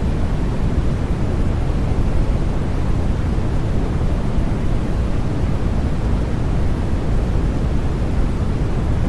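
Steady sleep noise for babies: an even, unbroken rushing hiss weighted toward the deep end, with no changes in level or texture.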